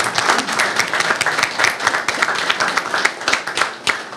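A small audience applauding, the clapping thinning out to a few scattered claps near the end.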